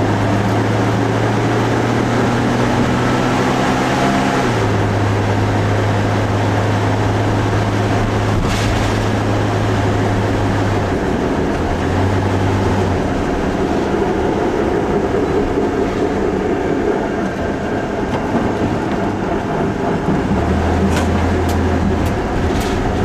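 Ultravan motorhome under way: a steady engine drone whose pitch shifts and drops out a few times, under a loud grinding, metal-on-metal sound from the front wheels. The grinding is the edge of a front brake drum rubbing on the backing plate, which had been hammered back for suspension clearance.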